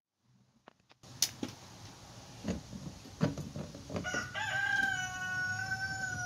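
A rooster crows about four seconds in, one long held note that drops in pitch as it ends. Before it there are a few sharp clicks and knocks as the metal fuel pump sending unit is worked loose from the tank.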